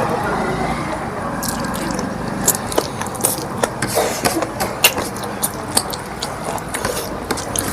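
Close-up chewing of food, with many irregular short sharp clicks over a steady low murmur.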